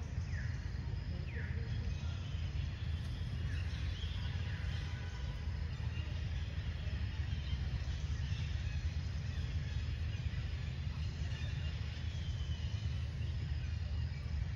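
Outdoor ambience: a steady low rumble with faint high bird chirps over it, including two quick falling chirps near the start.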